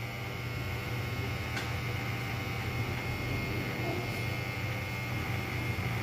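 Small battery-powered nail dryer's fan motor running steadily: a low hum with a thin, steady high whine.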